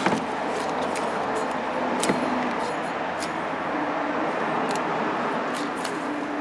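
Idler pulley, off the engine's serpentine belt drive, spun by hand: its bearing gives a steady rough whir with a few light ticks. This is the pulley that was making the buzzing noise under the hood.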